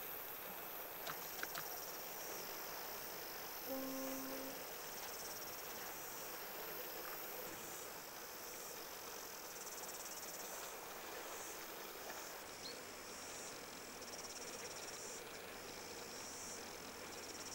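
Insects calling in a high-pitched shrill drone that breaks off and starts again several times, over faint outdoor background noise. A brief low tone sounds about four seconds in.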